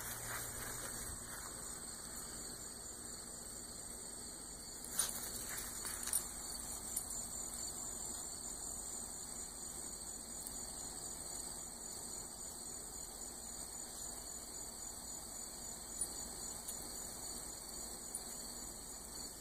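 Outdoor insect chorus: a steady, high-pitched, finely pulsing trill, with a few short clicks about five to seven seconds in.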